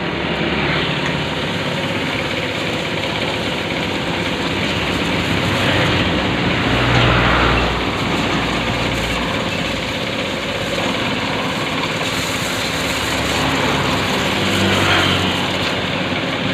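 High-pressure motorcycle-wash machine with an Alkon-style piston pump running steadily. The sound swells twice, about seven seconds in and near the end.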